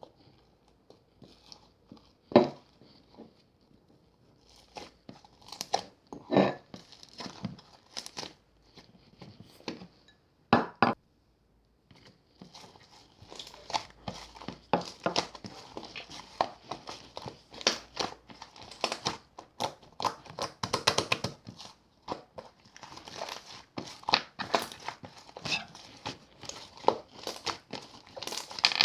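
Slime being squished, poked and stretched by hand, giving sticky clicks and popping air bubbles. The pops are scattered at first, then, after a brief pause near the middle, come thick and fast.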